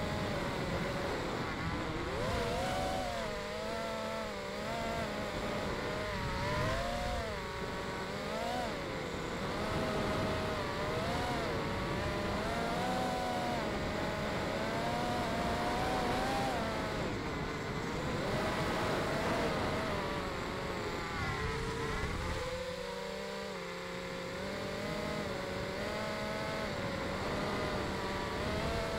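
FPV mini quad's brushless motors and propellers whining, the pitch rising and falling constantly with the throttle, over a rush of wind noise. Heard from the quad's onboard camera.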